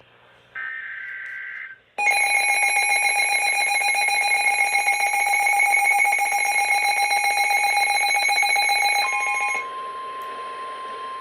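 Emergency Alert System alert tones: a short buzzing burst of SAME header data ends, and after a brief gap a loud, harsh attention tone sounds for about seven and a half seconds. Near the end it gives way to a quieter, steady single tone.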